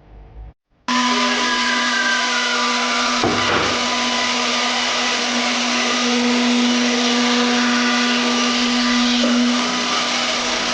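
Table-mounted wood router running at speed with a steady, high whine. It starts abruptly about a second in, and there is one short knock about three seconds in.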